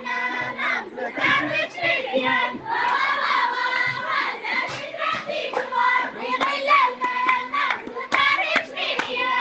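Voices singing together to hand clapping, the claps coming in a steady run throughout.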